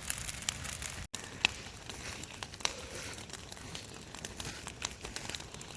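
Brush pile fire burning in the rain, crackling with irregular sharp pops over a steady hiss, broken by a brief dropout about a second in.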